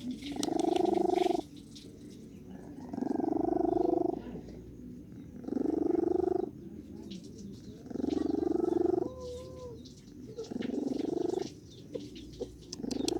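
Domestic cat snoring: a buzzing rattle on each breath, in regular spells about a second long, roughly every two and a half seconds, with quieter breaths between.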